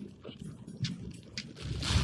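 Polyurethane foam squishy toy being squeezed and handled: a few soft crackles and rustles from the foam, with a slightly louder squeeze near the end.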